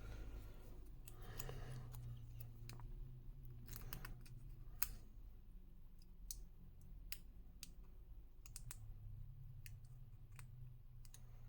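Faint, scattered metallic clicks and ticks as a thin shim is pushed and worked into an Elzett X11 dimple lock, with a steady low hum underneath.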